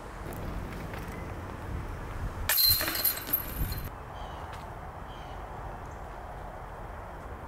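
Disc golf basket chains jingling as a disc strikes them: a bright metallic clatter about a second and a half long that cuts off abruptly, over a low outdoor rumble.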